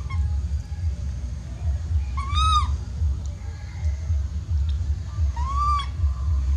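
Baby macaque giving two short crying coos about three seconds apart, each rising and then falling in pitch: the distress call of an infant missing its mother. A steady low rumble runs underneath.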